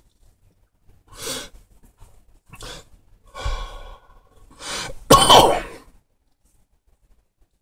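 A man exhaling smoke and coughing after a hit from a cannabis pipe: several short, breathy bursts, the loudest and longest about five seconds in.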